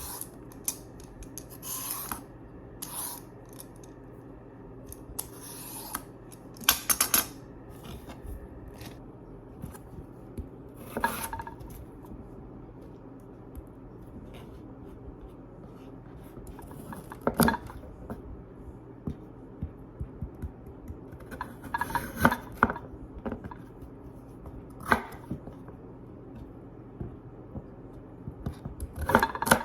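Carrots being peeled with a vegetable peeler: scattered scraping strokes and clicks of utensils, a few seconds apart, over a steady low hum.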